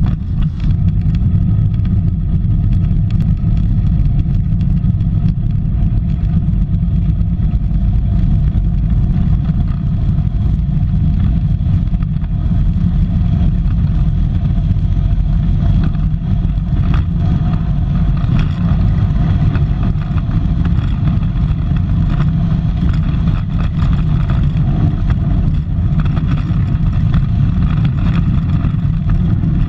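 Onboard sound of an engineless soapbox gravity racer running downhill on asphalt at speed: a steady, loud low rumble of wheels on the road and wind noise, with a faint steady whine above it.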